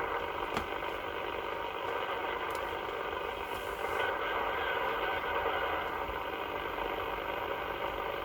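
CB radio receiver audio between transmissions: a steady hiss of band noise through the radio's speaker, with several faint steady whistling tones mixed in.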